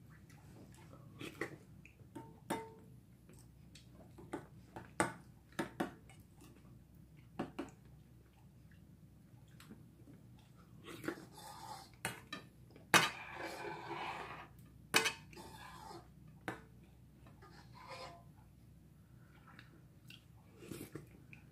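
A metal spoon clinking and scraping against stainless steel bowls while eating, about a dozen short sharp clinks at irregular intervals, the loudest about halfway through. Eating and chewing noises lie between them, thickest about two-thirds of the way in.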